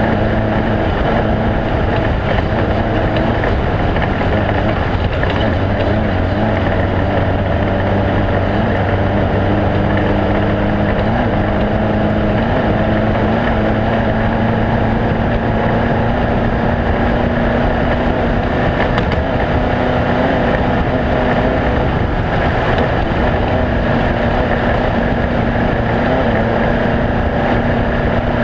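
A motor running steadily at an even pitch, unbroken throughout.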